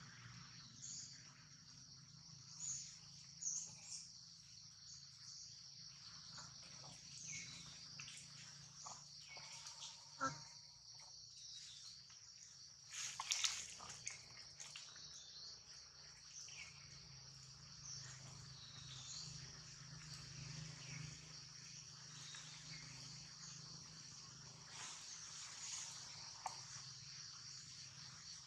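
Faint, steady high-pitched chirring of an insect chorus, over a low hum, broken by a few soft clicks and rustles, the sharpest about ten and thirteen seconds in.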